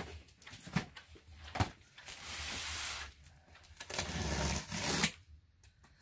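Large cardboard box being handled on a table: a few knocks in the first couple of seconds, then two stretches of scraping about a second long, around two and four seconds in.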